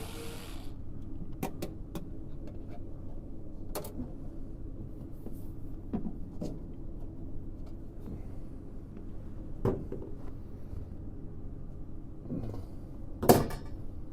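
A power drill-driver whirring stops just after the start. Then scattered light clicks and knocks as the VAV box's reheat enclosure and its parts are handled, the loudest knock near the end, over a steady low hum.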